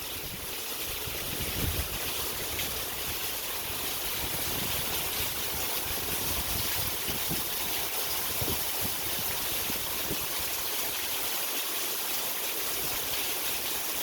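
Steady rain falling in an even hiss, with a low thump about two seconds in.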